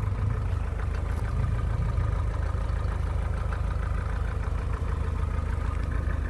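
Car engine idling steadily, a constant low pulsing hum.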